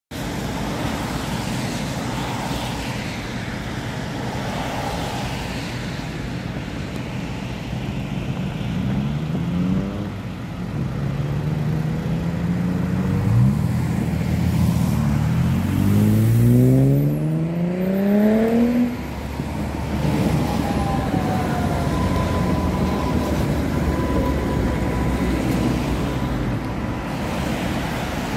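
City street traffic beside a tram line: a steady rumble of cars and trams, with several whines rising in pitch between about 9 and 19 seconds in as vehicles pull away. After that, a thin high whine falls and then holds steady.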